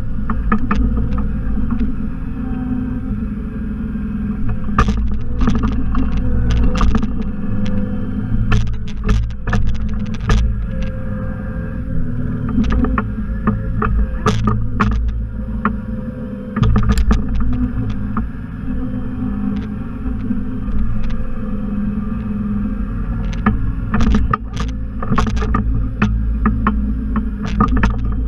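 Simplicity Legacy XL garden tractor engine running steadily under load, with frequent sharp clanks and knocks throughout.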